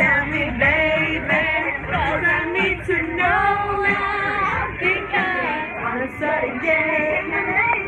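Men's and women's voices singing together over music, with some notes held long, as at a party sing-along.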